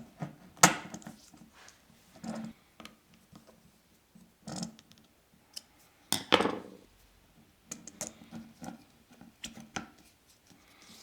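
Scattered clicks, taps and short scrapes of small plastic and metal parts being handled and fitted together: a resin-printed dial-indicator arm going onto a steel rod. The loudest scrapes come about a second in and about six seconds in.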